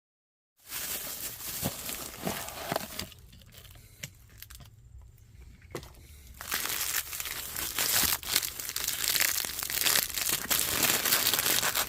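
A new oil filter's packaging being unwrapped: crinkling and tearing of wrapping with a few small handling knocks. It starts about half a second in, eases off for a few seconds in the middle, then turns denser and louder.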